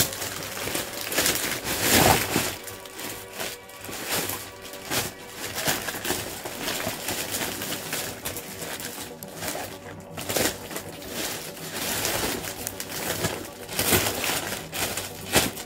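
A thin plastic shopping bag being handled and rummaged through, crinkling and rustling in irregular bursts, loudest about two seconds in and again near the end.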